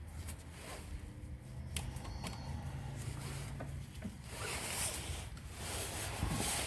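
Hand tools being handled on a car's rear suspension: a 17 mm socket and breaker bar fitted onto a shock absorber bolt, with a few faint clicks and rustling.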